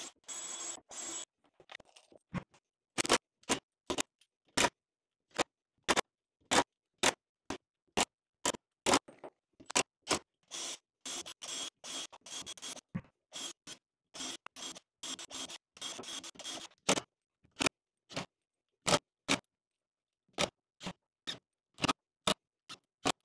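Makita 18V cordless drill/driver running in many short bursts, about two a second, with a few longer runs of a second or two. It is drilling pilot holes and driving screws through a steel joist repair strap into a wooden floor joist.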